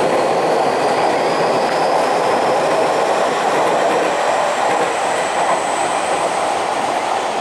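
Tokyu 5050 series electric train running past on elevated track: a steady rumble of wheels on rail, with a thin high motor whine that rises steadily in pitch as the train picks up speed.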